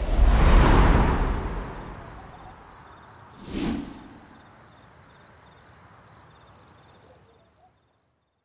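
Cricket-like chirping in a steady, evenly pulsed high trill. A low whooshing swell comes in at the start and a short whoosh follows about three and a half seconds in, and everything fades out near the end.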